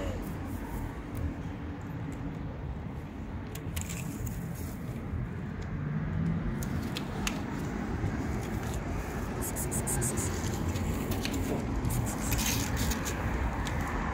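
Steady low rumble of outdoor street noise with scattered light clicks and rustles, which come more often in the second half.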